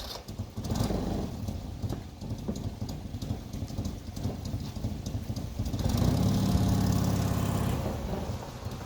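Honda 600's small two-cylinder air-cooled engine running, its note growing louder and steadier for a couple of seconds about six seconds in.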